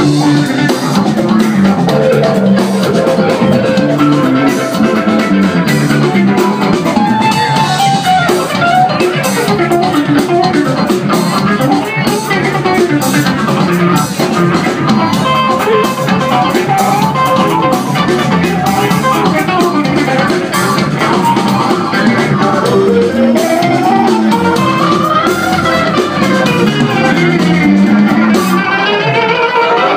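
Live instrumental funk band playing electric guitar, bass guitar and drum kit, heard from the audience in a club.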